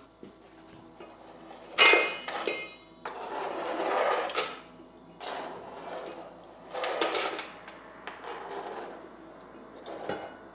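Kitchen utensils knocking and scraping in a mixing bowl: a sharp ringing clink about two seconds in, then several scraping strokes.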